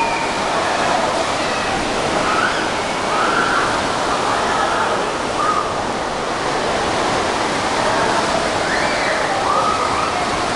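Fast water in a water-park wild-water channel, rushing and churning steadily as people ride down it in inflatable rings, with faint voices mixed in.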